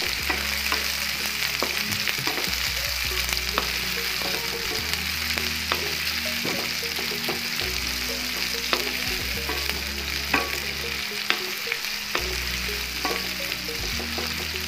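Sliced onions sizzling steadily in hot mustard oil in a kadai as they soften. A wooden spatula stirring them scrapes and taps against the pan from time to time.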